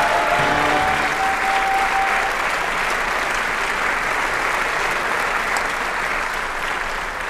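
A crowd applauding, with one held musical note sounding over it for the first two seconds.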